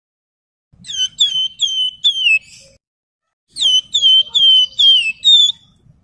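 Javan fulvetta (wergan Jawa) singing: two phrases of clear whistled notes, each note sliding down and then briefly held, four or five notes to a phrase with a short pause between the phrases.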